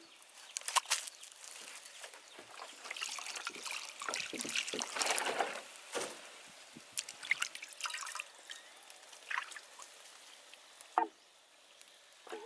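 Water trickling and pouring in uneven spurts, loudest about five seconds in, with scattered clicks and knocks.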